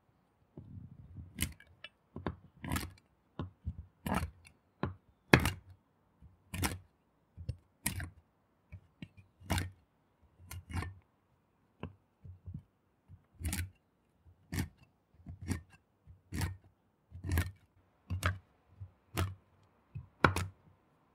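Chef's knife chopping whole almonds on a wooden cutting board: a series of sharp, uneven chops, about one a second, as the blade cracks through the nuts and knocks on the board.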